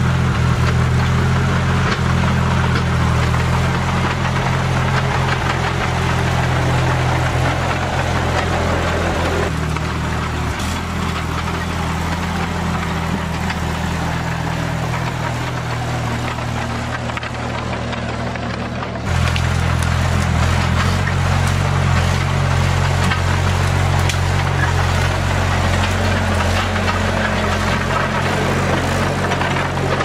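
Vintage Bristol 25 crawler dozer's engine running steadily as the dozer works. The engine note changes abruptly twice, about a third and two-thirds of the way through.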